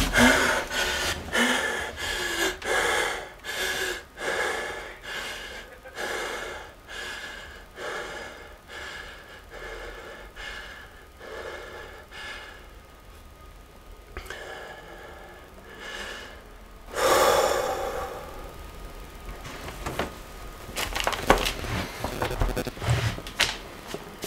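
A man breathing heavily in rapid, ragged gasps that slowly weaken and thin out, then one loud sharp gasp about two-thirds of the way through, followed by quicker, shakier breathing again near the end.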